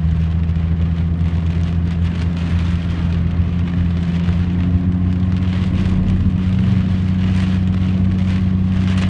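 Rain pelting a moving car, a dense patter over the steady low drone of the engine and road.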